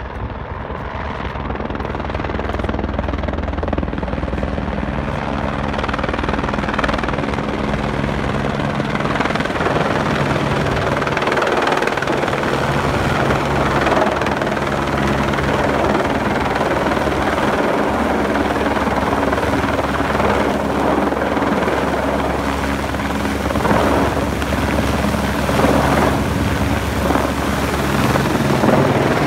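Helicopter flying overhead, its rotor and turbine running steadily; the sound grows louder over the first few seconds and then holds.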